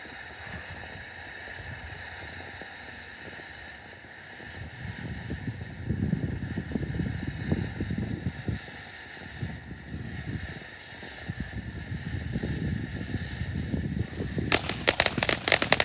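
Grand-finale consumer firework going off: a steady hiss, irregular low thumps from about six seconds in, then near the end a rapid string of sharp crackling reports, the loudest part.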